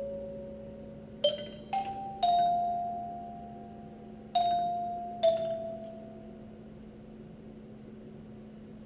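Heliphon robotic glockenspiel playing slow single notes: five metal bars struck one at a time over the first five seconds or so, each left to ring and fade. The last ring dies away over the final few seconds, over a faint steady hum.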